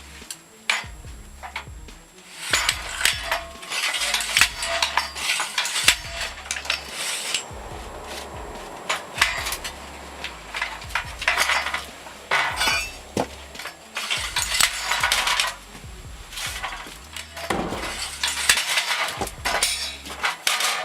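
Repeated clinks, knocks and clattering of hard objects, with background music underneath.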